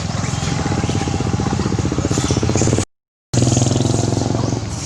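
Small motorcycle engine running steadily nearby, its firing pulses close and even. The sound drops out completely for about half a second a little after the middle.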